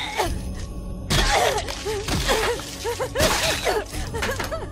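Dubbed anime soundtrack: a girl's voice making a run of short, wavering vocal sounds, broken by harsh noisy gasps or effects about once a second.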